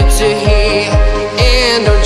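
Background music with a deep kick drum on every beat, a little over two beats a second, under a sustained melody.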